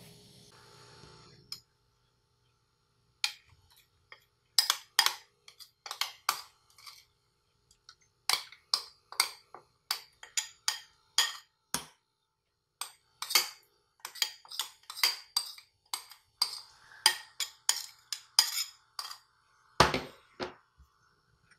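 Metal spoon clinking and scraping against ceramic bowls in quick, irregular taps while thick red pepper paste sauce is worked and scraped out. A heavier knock comes near the end.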